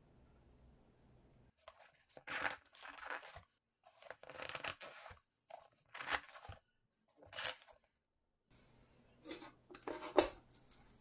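Wooden toothpick skewers being pushed into a white foam block: a series of short scratchy crunches of the foam, in small clusters, the loudest near the end.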